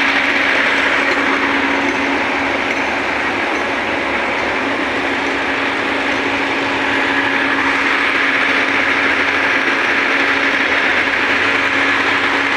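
Heavy truck's diesel engine running steadily: a constant drone with a low hum under it.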